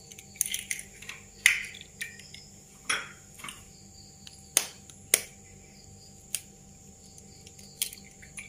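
Eggs being cracked against the edge of a steel fork held over a ceramic plate: a series of sharp taps and shell cracks at irregular intervals.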